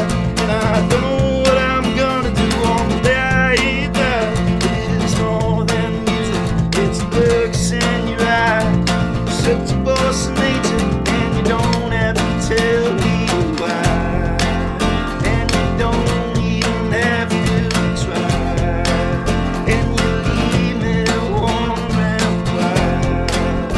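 Strummed acoustic guitar playing an instrumental break of a folk song, with a wavering melody line over the strumming.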